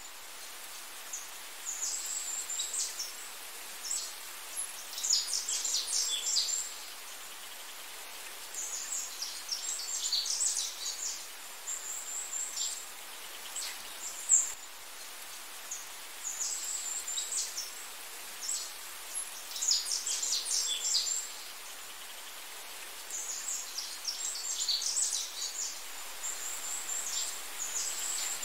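Small birds chirping in quick, high-pitched clusters every few seconds over a steady background hiss. The pattern of calls repeats about every 14 seconds, like a looped nature ambience track.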